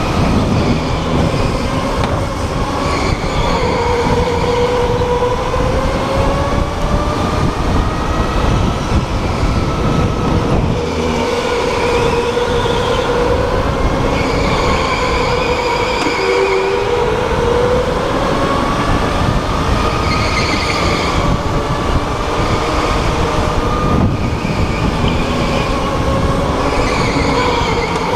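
Onboard sound of an electric go-kart racing: the motor's whine rises and falls in pitch with speed over a steady rumble of tyres and wind, with brief higher squeals every few seconds.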